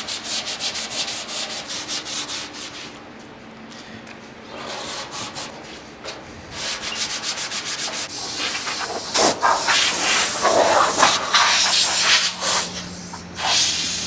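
Hand sanding a clear-coated panel with worn 220-grit sandpaper: quick, even back-and-forth strokes at about three or four a second, which pause, then resume as louder, irregular scrubbing. A faint steady hum comes in about nine seconds in.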